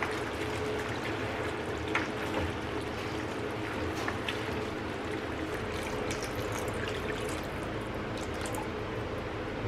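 Tomato and chicken gravy bubbling in a kadai over a gas flame with a steady hiss, while a ladle stirs it and clicks against the pan a couple of times. Near the end, water is poured into the gravy from a glass.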